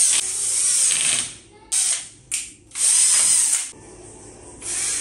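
Cordless drill-driver spinning screws at a small metal bracket on a wooden slat. It runs in about five bursts, each a second or shorter, with the motor note rising and falling as the trigger is squeezed and let go.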